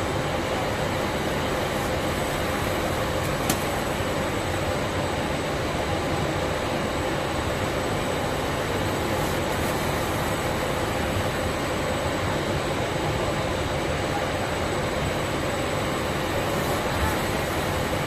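Rotary-arm pallet stretch wrapper running on a roller-conveyor line: a steady machine hum and noise with a faint constant tone, and a single sharp click about three and a half seconds in.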